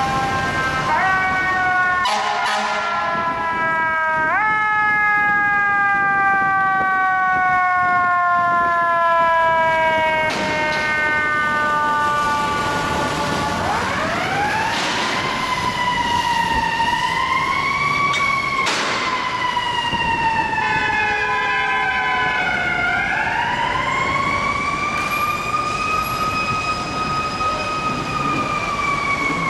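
Fire engine siren wailing as the rig responds. Its pitch jumps up quickly twice in the first few seconds and then sinks slowly for several seconds. From about halfway through it rises and falls in long sweeps, with a few sharp knocks over steady traffic noise.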